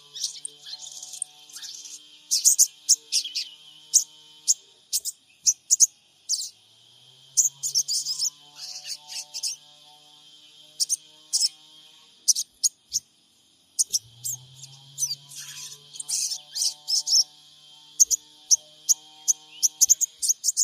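Sogon birds calling in fast, sharp, high twittering chirps, coming in clusters throughout, recorded as a lure call to make a caged sogon answer. A steady high drone runs underneath.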